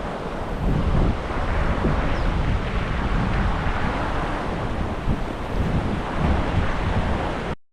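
Wind buffeting the microphone over a steady rush of flowing water from the Savage River, cutting off abruptly near the end.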